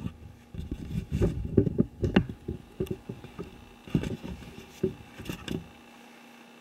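Handling noise from the camera being moved and reframed: irregular low thumps and rubbing, with a few sharper clicks around two seconds in and again near four seconds in.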